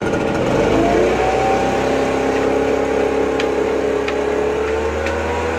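Handheld leaf blower running with a rush of air and a whine that climbs slowly in pitch, plus a few faint ticks.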